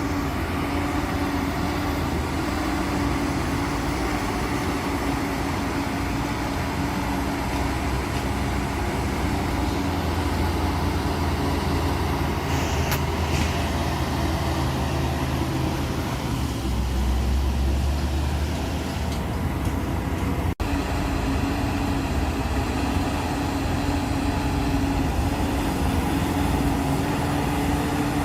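Diesel engine of heavy earth-moving machinery running steadily with a low rumble, broken by an instant's dropout about twenty seconds in.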